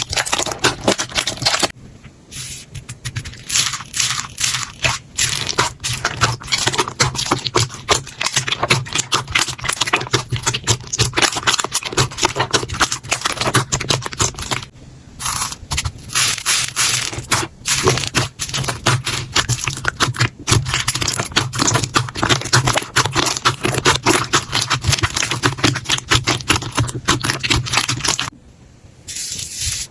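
Slime being squeezed, poked and stretched by hand, making a dense run of sticky crackles and popping clicks, with short pauses a few times.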